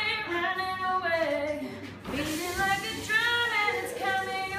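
Girls' voices singing a melody with drawn-out notes, breaking off briefly about two seconds in and then going on.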